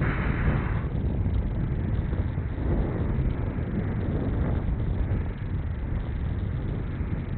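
Steady wind rushing and buffeting on the microphone of a handlebar-mounted camera on a road bike moving at speed, a deep rumble with a brief hiss in the first second.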